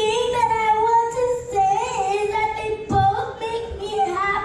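A young girl singing into a microphone, holding long notes.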